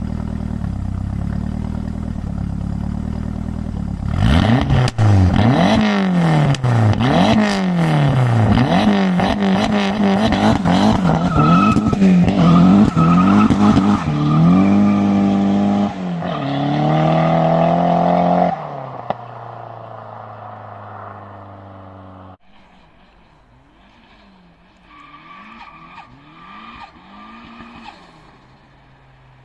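Turbocharged Ford Pinto 2.0 single-overhead-cam four-cylinder in a Ford Sierra, through an open header and lightly muffled exhaust: idling with a lope, then revved hard again and again, rising and falling, held high once and dropped back to idle. Quieter repeated revs near the end.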